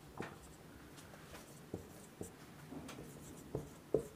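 Marker pen writing on a whiteboard: faint, irregular taps and short scrapes of the pen strokes, with a louder tap near the end.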